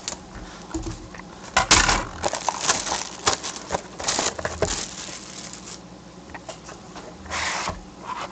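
Plastic shrink wrap on a sealed trading-card box crinkling and tearing as gloved hands pull it off, in irregular bursts.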